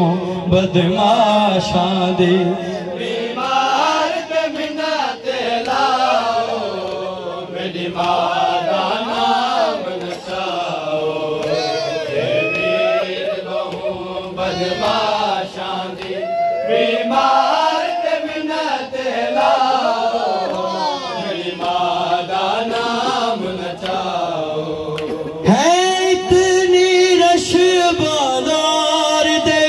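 Noha, a Shia mourning lament, chanted by male voice in a slow, drawn-out melody through a handheld microphone. About 25 seconds in the voice comes in louder, holding long wavering notes.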